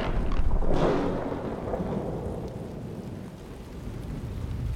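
Thunderclap with a crack about a second in, followed by a deep rolling rumble that slowly fades and builds again near the end, over steady rain.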